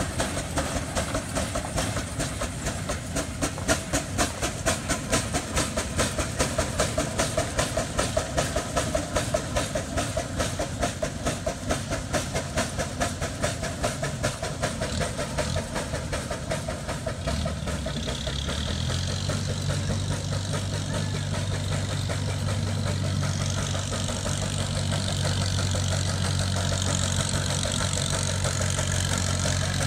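Steam traction engine running under way, its exhaust beating in a quick, even rhythm. Past the middle the beats fade and a steady low hum with a high hiss takes over.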